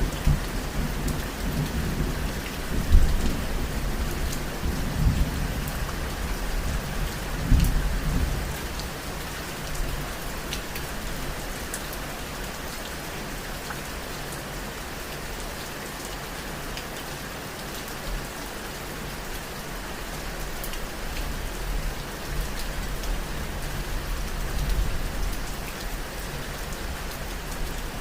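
Steady rain falling, with low rolls of thunder over the first several seconds, loudest about three seconds in and again near eight seconds, then a fainter rumble near the end.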